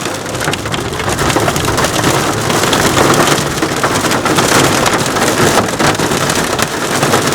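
Heavy rain pelting the roof and windshield of a car, heard from inside the cabin as a loud, steady patter of many small hits.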